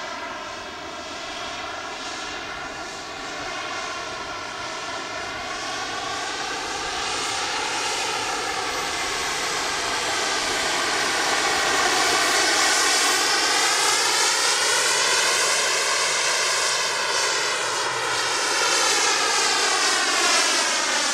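Small gas turbine of an RC sport jet in flight: a steady rushing whoosh that slowly grows louder, with a wavering, phasing sweep as the jet moves about in the air.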